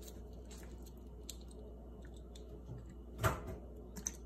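A brown eggshell being cracked open by hand over a bowl of milk: faint crackling of the shell, then one sharp crack about three seconds in, and a small click near the end.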